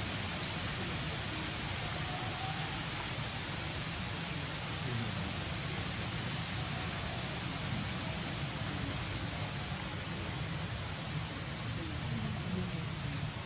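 Steady outdoor ambience: an even, high-pitched hiss that holds constant, over a low rumble, with no distinct events.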